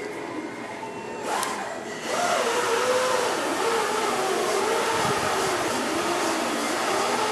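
Gas torch flame hissing steadily, getting louder about two seconds in, as it heats lead body solder on a car's steel panel to keep the lead soft for shaping.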